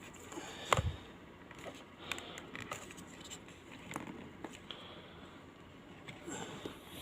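Faint handling noises of a small plastic pulse oximeter and its battery: light scrapes and scattered small clicks, with one sharper click under a second in.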